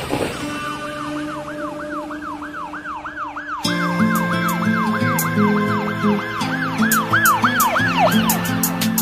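Instrumental intro of a pop song: a siren-like synth tone warbling up and down about three times a second over a held chord. A bass and drum beat with ticking hi-hats comes in about three and a half seconds in.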